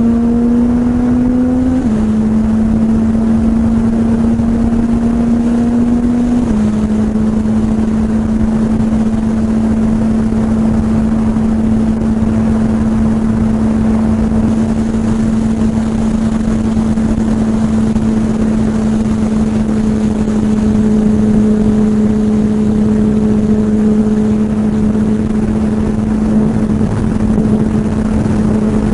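Suzuki GSX-R1000R L7's inline-four engine running at a steady cruise, heard from the rider's position with wind rushing past. The engine note dips slightly twice in the first several seconds, then holds steady.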